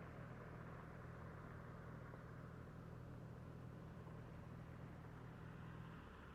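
Car engine idling steadily with a low, even hum, stopping about six seconds in.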